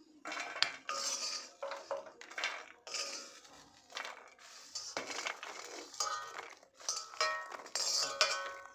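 Metal ladle scraping and clinking against a metal kadhai as popped popcorn is scooped out and tipped into a steel plate, with repeated clatters and brief metallic ringing.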